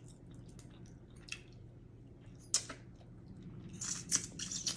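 Close-up eating sounds of a person eating steamed blue crab: wet chewing and mouth smacks as scattered short clicks, with one louder click about two and a half seconds in and a quick cluster near the end.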